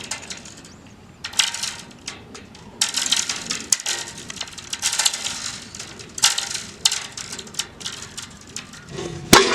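Foley crunching and crackling: irregular bursts of crisp, rustling crunches, then one sharp hit near the end.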